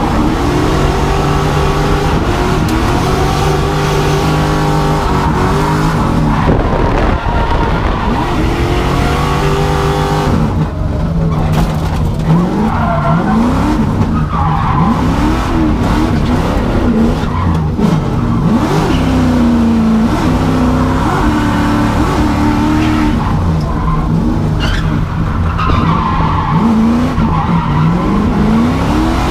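LS V8 engine of a BMW E36 drift car revving hard, its pitch climbing and dropping over and over as the throttle is worked, with tires squealing through the slides.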